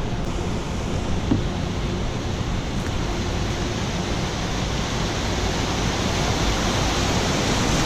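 Rushing water of a heavy barge wake surging through the shallows around a kayak. It is a steady wash that builds slightly toward the end.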